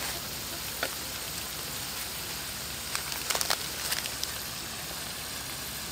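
Crabs frying in a pan over a strong fire: a steady sizzling hiss, with a few sharp pops and crackles, most of them bunched together about halfway through.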